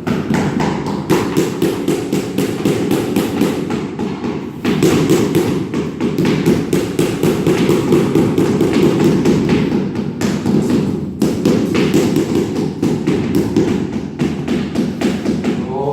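Rapid, even tapping or knocking, about three knocks a second, over a steady low drone.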